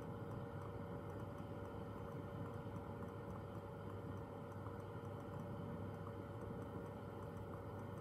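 Steady rushing noise of a Bunsen burner's blue flame heating a beaker of water just below the boil, at about 95 °C, with a faint, regular ticking.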